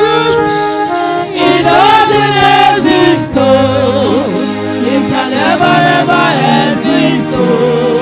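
Gospel singing in a church service: voices with wavering, gliding held notes over steady sustained instrumental chords.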